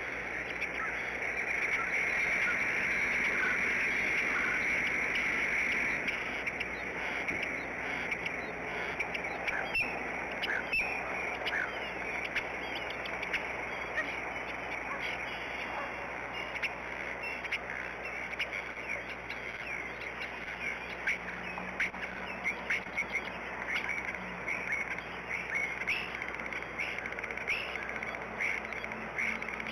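Birds calling at a bald eagle nest during a feeding. A steady high trill or buzz lasts the first several seconds, then many short chirps and calls are scattered through the rest.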